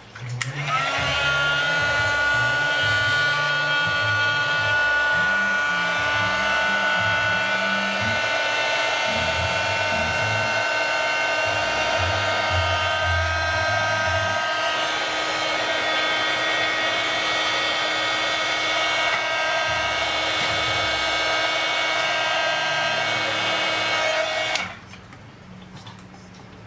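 Handheld hot-air blower running steadily, a whooshing rush of air with a fixed whine over it, then switched off near the end.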